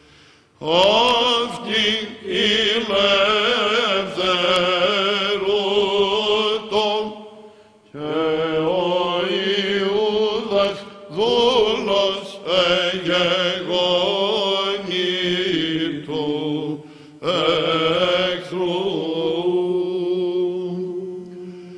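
Male Byzantine chant: a lead chanter sings a melismatic Greek Orthodox hymn in long phrases over a steady low held note (the ison) from the other men, with a few short breaks between phrases.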